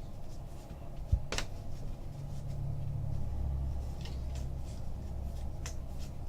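Trading cards and pack wrappers being handled: a soft thump about a second in, a sharp click just after, then scattered light clicks and rustles over a low hum.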